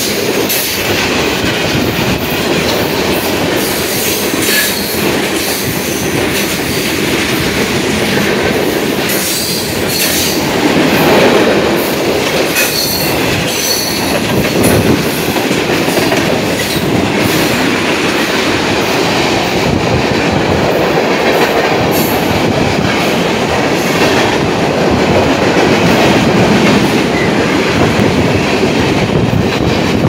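Freight cars of a New York, Susquehanna & Western train (tank cars and hoppers) rolling past at speed: a steady rumble of steel wheels on rail, clicking over the rail joints, with short high wheel squeals near the middle.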